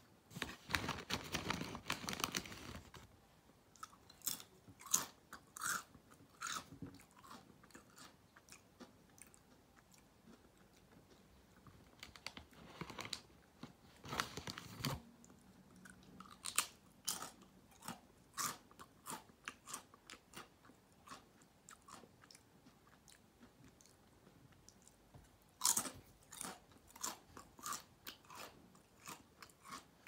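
Crisp chips being bitten and chewed. Dense crunching comes at the start, again about halfway through and near the end, with lighter, spaced crunches of chewing in between.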